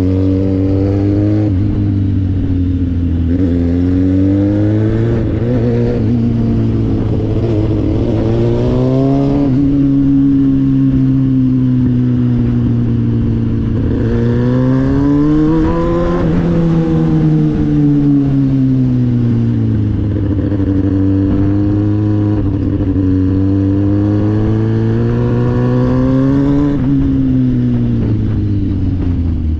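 Kawasaki ZX-6R inline-four sport bike engine running while riding, its pitch climbing under acceleration and falling back several times, with drops about 5, 9, 16 and 27 seconds in.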